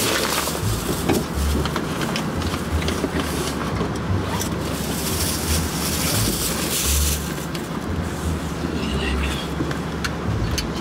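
Low, uneven rumble in a car cabin with a rear door open, with rustling and scattered light clicks and knocks as a child is strapped into a car seat.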